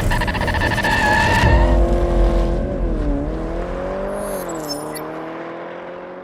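A car engine running with a pitch that dips and rises, fading away near the end.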